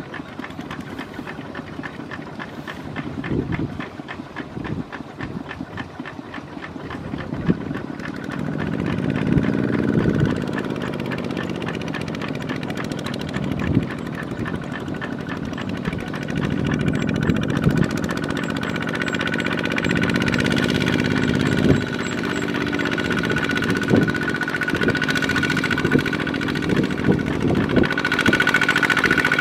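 Farm diesel engines running and revving hard, with scattered knocks and clatter. A steady high whine grows stronger in the second half.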